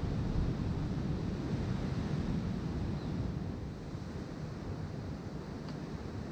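Wind buffeting the microphone, with the wash of ocean surf behind it; the wind eases a little about four seconds in.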